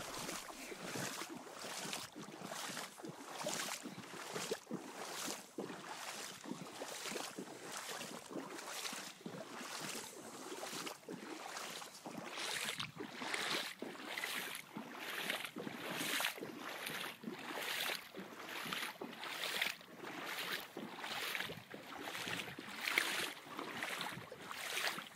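Footsteps of someone walking over waterlogged, flooded ground, a steady stride of about three steps every two seconds.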